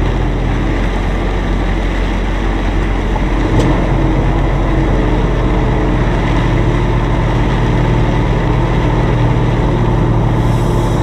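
Semi truck's diesel engine running steadily as the truck creeps forward at walking pace, heard from inside the cab, with an even hiss over it.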